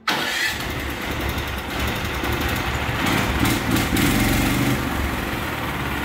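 Norwood LM30 portable sawmill's gasoline engine cutting in abruptly and running steadily, swelling slightly a few seconds in.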